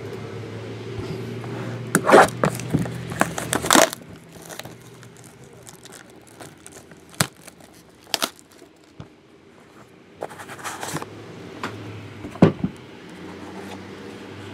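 Plastic shrink wrap being torn off a sealed trading-card box and crumpled: sharp ripping and crinkling, loudest a few seconds in, then scattered crackles and handling noises.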